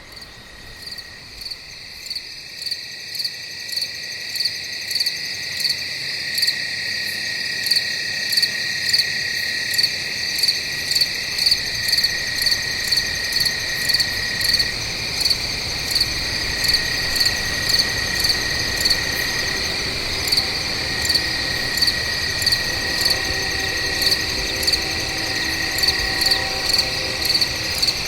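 Night insects calling: a loud pulsed chirp repeating about one and a half times a second over a steady high trill. It builds up over the first several seconds.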